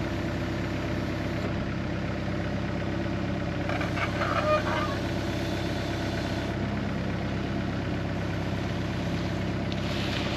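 Mini excavator's diesel engine running steadily while the hydraulics swing the arm and lower the thumb onto a wooden stump, the sound swelling briefly about four seconds in.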